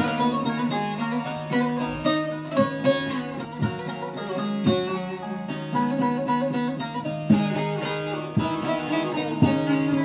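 Two bağlamas, Turkish long-necked lutes, played together in an instrumental passage: a quick plucked and strummed melody over a steady low note.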